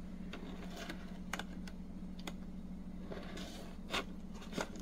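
A handful of light, sharp clicks and taps from fingers handling a clear plastic display case, over a steady low hum.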